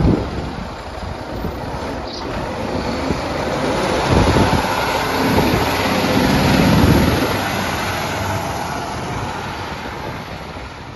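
Diesel engine of a fire department ladder truck pulling away and driving past, its sound swelling to loudest about halfway through as it passes, then fading as it moves off down the street.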